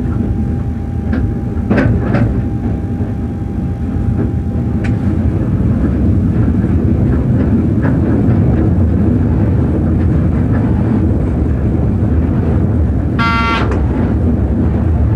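Cab of a ČD class 363 electric locomotive under way: a steady running rumble with sharp wheel clicks over rail joints and points in the first couple of seconds, and a faint steady whine that stops about five seconds in. A brief tooting tone sounds once near the end.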